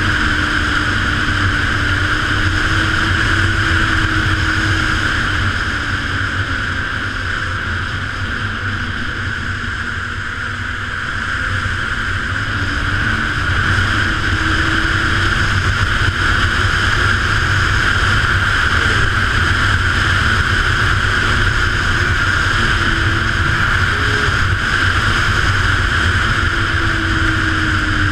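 2014 Ski-Doo Renegade 900 ACE snowmobile, with its three-cylinder four-stroke Rotax engine and track, running steadily at trail-cruising speed. It eases off a little for a few seconds around the middle, then picks up again.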